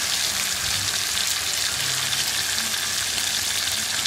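Oil and onion-spice paste sizzling steadily in a non-stick frying pan while braised snakehead fish pieces are lifted out with a wooden spatula.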